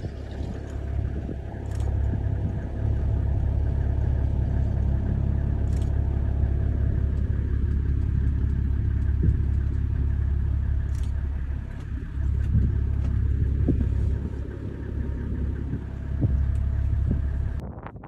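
Safari vehicle's engine running, a steady low rumble with a few faint clicks.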